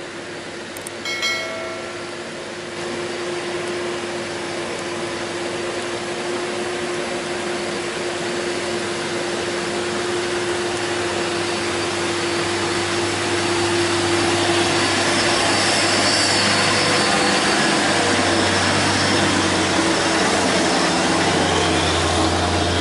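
Diesel engine of a loaded Hino 500 truck labouring up a steep, wet hairpin climb, its drone growing louder as the truck comes closer and passes. A short pitched tone sounds about a second in.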